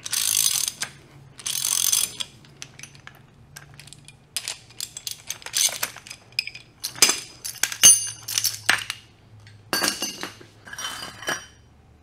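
Ratchet wrench clicking in two short runs as it cranks the forcing screw of a steel jaw puller drawing a gear off a ZF S5-42 transmission's main shaft. This is followed by scattered metal clicks and clinks as the puller's jaws are handled, with a brief ringing of steel in the middle.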